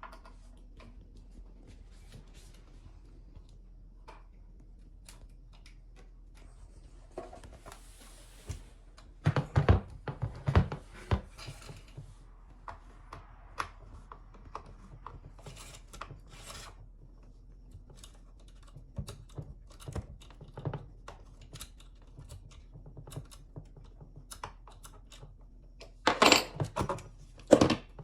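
Metal clicks, knocks and rattles of a chainsaw's chain and guide bar being handled and fitted by hand, with louder bursts of clatter about ten seconds in and again near the end.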